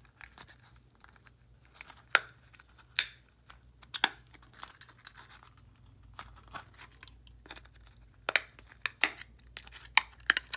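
A glued-in LED circuit board being pried out of a plastic light-bulb housing with a pry tool: irregular sharp clicks, creaks and cracks of plastic and glue giving way, with a cluster of them near the end.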